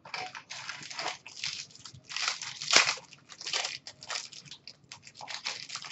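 Foil wrapper of a hockey card pack crinkling and crackling in an irregular string of rustles as it is handled and opened by hand, loudest about three seconds in.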